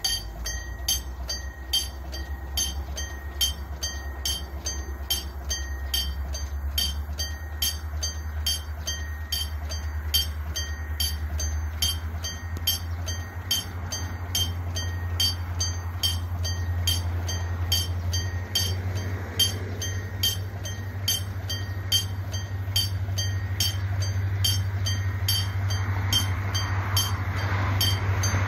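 Railway level-crossing warning bell ringing steadily, about two strokes a second, while the low rumble of an approaching train grows louder toward the end.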